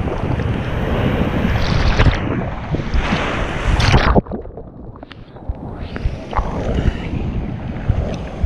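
Ocean waves rushing with wind buffeting the microphone. The rushing stops suddenly about four seconds in and then slowly builds up again.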